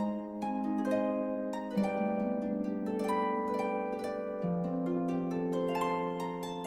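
Instrumental music of plucked, harp-like notes, each ringing on, in a steady flowing melody.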